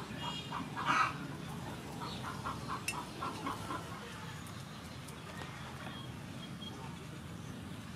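A chicken clucking, a quick run of short calls about three a second, dying away after about three and a half seconds.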